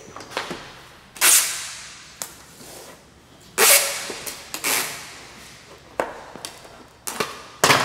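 Handheld packing-tape gun sealing a cardboard shipping box: about five loud, sudden pulls of tape off the roll, each fading away, with smaller clicks and rustles of the box between them.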